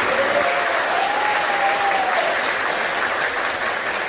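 Audience applauding in a hall, steady clapping from many hands. A faint held tone, rising in pitch and then levelling off, sounds through it from about half a second in until past two seconds in.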